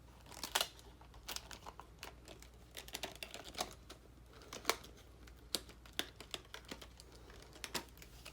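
Small plastic number pieces of an LED calendar being handled and worked loose by hand: light, irregular clicks and plastic crinkling.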